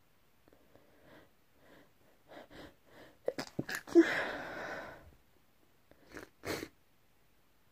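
A person sneezing once, loudly, about four seconds in. Before it comes a run of catching breaths that grow louder and quicker, and two short breaths follow it.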